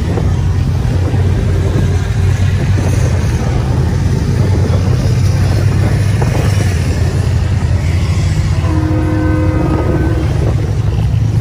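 Steady, loud low rumble of engines from mud-bogging vehicles, with a horn blowing once for about a second and a half near the end.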